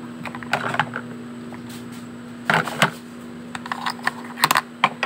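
Light clicks and knocks of makeup items being handled and set into the compartments of a hard plastic makeup organizer, in three short clusters, over a steady low hum.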